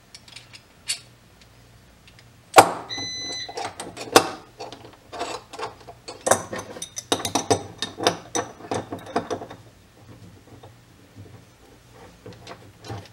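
Steel adjustable wrenches clinking against brass pipe fittings as they are fitted on and turned to tighten an M22 adapter into a quick-connect coupler. There is a sharp metal clank with a brief ring about two and a half seconds in, then a run of clicks and clinks.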